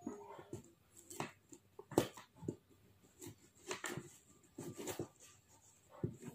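Faint handling of paper and cardboard: scattered rustles and light taps as a paper play-money note is worked into the slot of a cardboard box.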